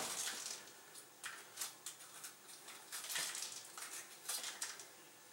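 Faint, scattered light clicks and rustles of kitchen utensils and items being handled, a few each second, with no steady sound under them.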